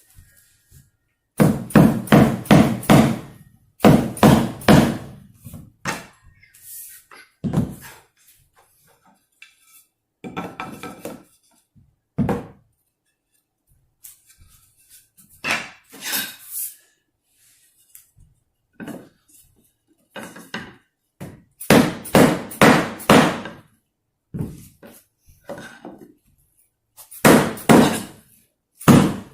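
Hammer blows knocking a replacement maple hardwood floor plank into place. They come in bursts of several quick strikes with pauses between.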